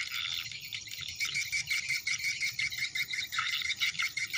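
Dense chorus of calling frogs and insects: a rapid, even pulsing with a steady high note over it.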